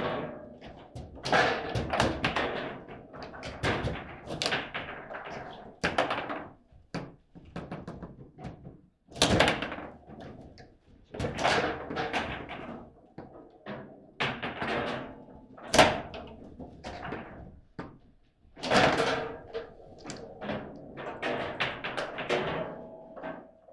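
Table football (foosball) in play: quick, irregular knocks and clatters of the ball being struck by the rod figures and banging against the table, often in rapid flurries, with one sharp crack about two-thirds of the way through.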